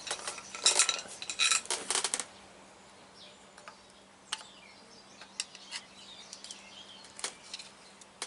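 Metal clinking of hand tools and a truck driveshaft's U-joint parts being worked by hand: a quick run of sharp clinks in the first two seconds, then scattered lighter clicks.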